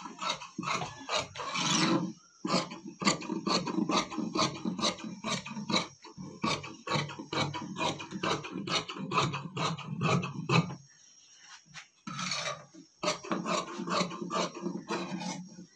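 Tailor's shears cutting through layers of fabric on a cutting table: a quick run of repeated snips, pausing for about a second a little past two-thirds of the way through before cutting on.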